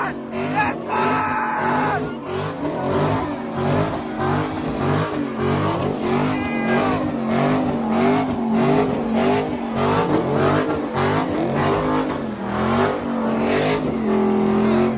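A car's engine held at high revs during a burnout, its pitch wavering up and down about once or twice a second, with the hiss and squeal of spinning tyres.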